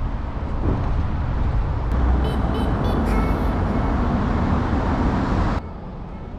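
Street traffic noise: a steady rush and rumble of passing road vehicles, with a few short high-pitched chirps about two to three seconds in. It cuts off suddenly near the end, leaving a much quieter background.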